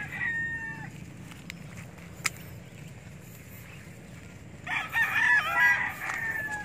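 A rooster crowing: the tail of one crow in the first second, then a full crow of about two seconds near the end that trails off falling. A single sharp click comes a little over two seconds in.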